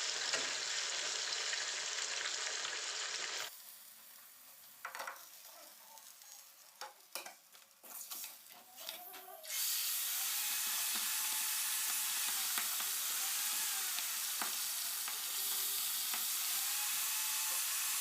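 Fish pieces frying in hot oil in a pan, a steady sizzle. About three seconds in it drops away for some six seconds, leaving only a few sharp knocks and scrapes of a utensil on the pan, then the sizzling returns.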